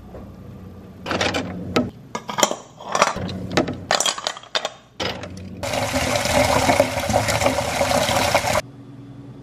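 Ice cubes clattering into a container in quick knocks for a few seconds. Then a stream of water pours onto the ice for about three seconds and stops sharply.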